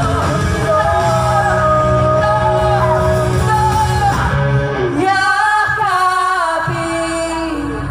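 All-female rock band playing live, a woman singing lead over guitars and drums. About five seconds in the band drops out and the singer holds one long note alone, sliding down near the end.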